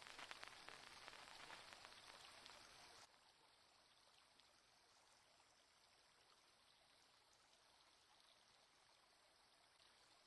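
Near silence: a faint wash of moving water from a kayak paddling on a lake, dropping even fainter about three seconds in.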